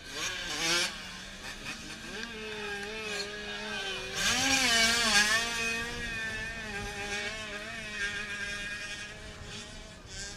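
Motocross dirt bike engines revving on the track, the engine note rising and falling as the throttle opens and closes through the jumps. It is loudest a little before the middle, as a bike passes closer.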